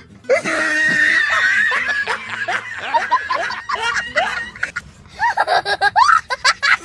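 People laughing in quick, short, high-pitched snickers and giggles, thickest and loudest in the last couple of seconds.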